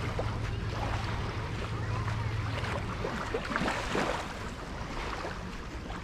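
Beach ambience: an even wash of surf and wind with scattered distant voices. Under it a low steady hum fades out about halfway through.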